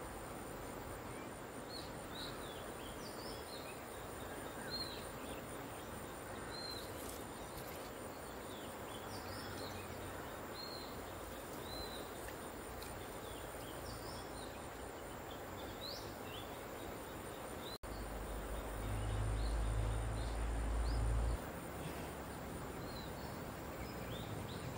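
Riverside outdoor ambience: small birds give short, high chirps again and again over a steady hiss, with a steady high insect buzz beneath. Near the end a low rumble lasts about three seconds and is the loudest sound.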